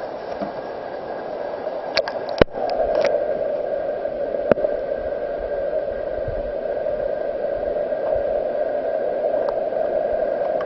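Camera dipped under the water of a torrent pool: a few sharp knocks about two seconds in as it goes under, then steady, muffled underwater noise of the moving water.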